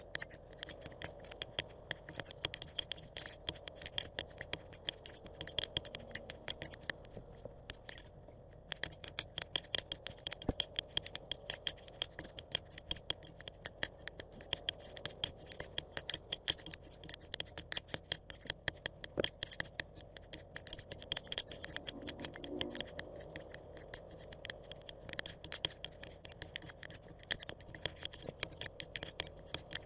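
Dense, irregular patter of small sharp ticks, typical of raindrops striking an outdoor camera's housing and microphone, over a steady background hiss.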